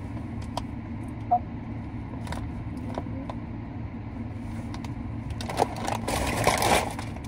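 Brown paper takeout bag rustling and crinkling as it is handled, with a few small clicks early on and a louder stretch of crinkling as it is lifted near the end, over a steady low hum inside the car.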